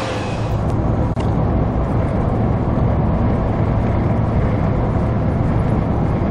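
Steady drone of a car's engine and tyres heard from inside the cabin while driving along at speed.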